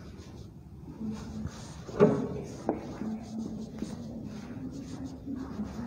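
Marker writing on a whiteboard: short scratchy strokes, repeated as letters are formed, with one sharp knock about two seconds in.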